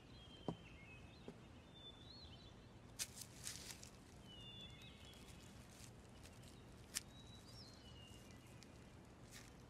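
Quiet outdoor ambience with faint birds chirping now and then, and a few soft clicks.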